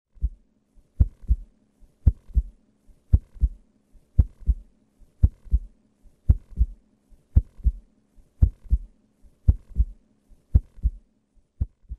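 A heartbeat: low double thumps, lub-dub, repeating a little faster than once a second.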